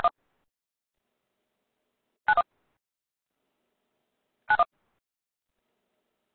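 Short touch-tone telephone beeps on the conference call line: three paired beeps about two seconds apart, the same pair each time.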